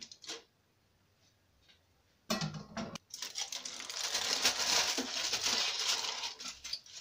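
A short clatter about two seconds in, then aluminium foil crinkling and rustling steadily as it is peeled back off a pot of cooked rice.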